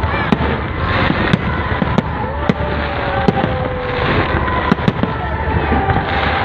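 Fireworks display: aerial shells bursting in an irregular stream of sharp bangs and crackles, a few each second, over the steady noise of a large crowd.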